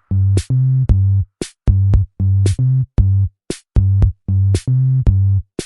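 Electronic background music with a drum-machine beat: loud, choppy bass-synth notes that start and stop on a steady pulse of about two beats a second, with crisp hi-hat ticks.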